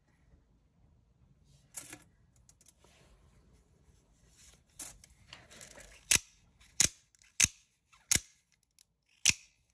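Microtech Combat Troodon Gen III double-edge out-the-front automatic knife, its blade snapping out and back as the thumb slide is worked. There are a couple of softer clicks, then five sharp metallic snaps about 0.7 seconds apart in the second half.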